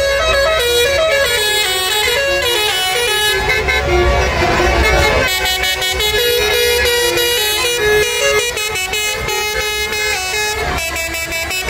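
Basuri musical horns on several tour buses playing tunes over one another, the notes stepping up and down in pitch, with a low rumble beneath.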